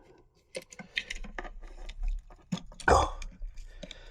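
A run of small sharp clicks and knocks from metal lock-gearbox parts and tools being handled on the bench, with one louder knock about three seconds in.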